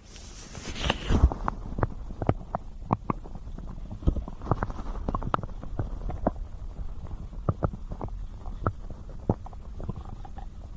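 Close-up stomach gurgling and growling: irregular short pops and bubbling gurgles over a low rumble, with a brief hiss about a second in.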